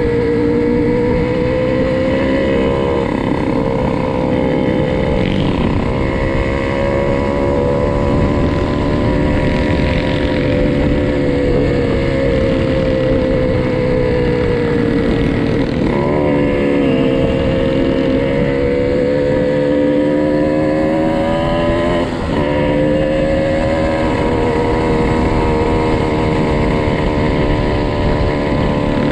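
Motorcycle engine heard from on board while riding, its note rising and falling with the throttle, with sudden breaks in pitch about 16 and 22 seconds in.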